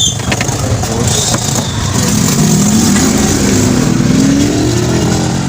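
A motor engine running, its pitch slowly rising through the middle as it speeds up.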